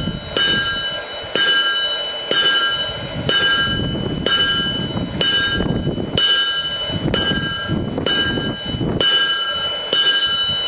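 Blacksmith's hand hammer striking hot chisel steel on an anvil, one blow about every second, eleven in all. Each blow sets off a clear ringing with several tones.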